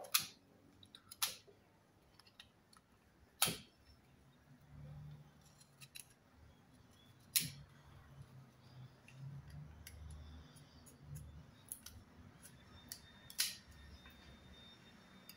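Utility knife shaving a bamboo skewer thinner, heard as about five sharp cutting clicks spread through, with lighter ticks between them. A faint low hum runs underneath from about a third of the way in.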